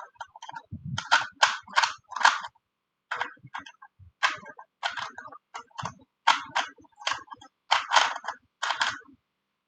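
Plastic Rubik's brand 3x3 cube being turned fast in a speedsolve: a run of sharp clacks of the layers snapping round, about two to three a second in clusters with short pauses.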